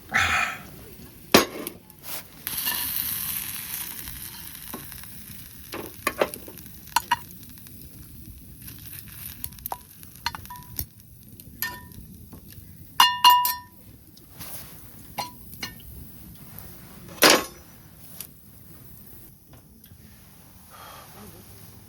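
Camp cookware and utensils knocking and clinking, some with a short metallic ring, with a hiss lasting a couple of seconds near the start.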